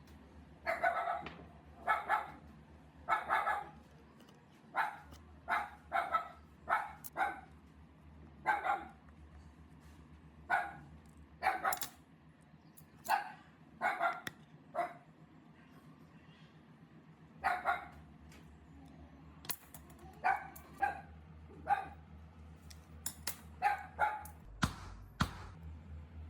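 A dog barking repeatedly, in irregular runs of short barks.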